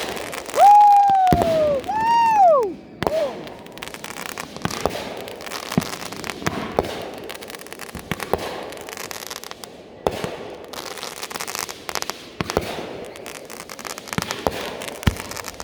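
Fireworks: two loud whistles that rise and then fall in pitch in the first three seconds, a short third one just after, then a steady scatter of sharp bangs and pops.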